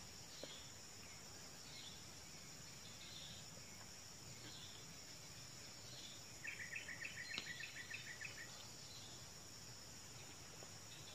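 Faint outdoor insect chorus: a steady high trilling, with faint short chirps about once a second. Past the middle comes a rapid run of chirps lasting about two seconds.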